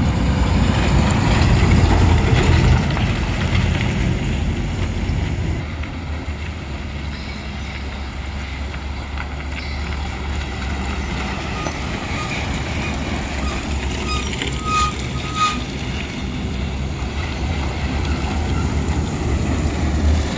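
Heavy diesel tipper trucks and a cargo lorry passing on a hill-road bend, a deep steady engine rumble that is loudest in the first few seconds. A few short high tones sound about three-quarters of the way through.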